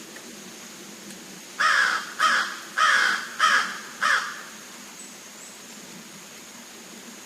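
A bird calling five times in quick succession, each call loud and under half a second long.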